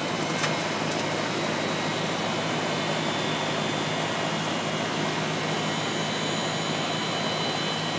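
Outdoor air-conditioner condensing unit running steadily, its old reciprocating compressor and condenser fan making a steady hum under an even rush of air. The compressor is pumping the system down, drawing the refrigerant into the condenser with the liquid line valve shut.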